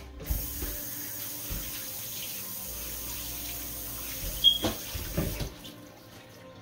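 Kitchen tap running into the sink while a wooden cutting board is rinsed of raw fish. A few knocks come near the end, and the water shuts off about five and a half seconds in.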